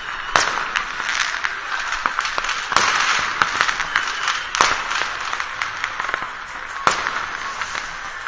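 Fireworks and firecrackers going off at a distance, many at once: irregular sharp bangs and pops, four standing out above the rest, over a steady crackling hiss.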